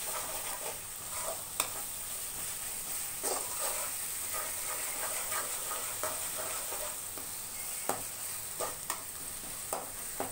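Sliced onions, garlic and ginger-garlic paste sizzling in hot oil in a metal kadai, with a steady high hiss. A slotted metal spoon stirs and scrapes through them, knocking against the pan in irregular clicks every second or so.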